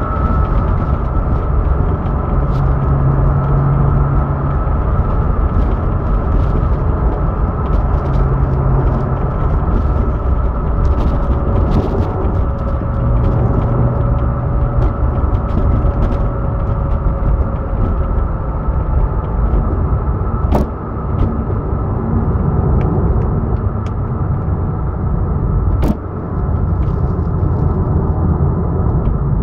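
Vehicle engine running with a steady low rumble and a faint high-pitched hum over it, a new noise whose cause the owner does not know. Two sharp clicks come about twenty and twenty-six seconds in.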